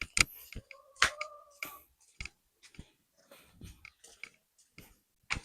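A scattered series of short clicks and light knocks from objects being handled and set down, with a brief squeak about a second in.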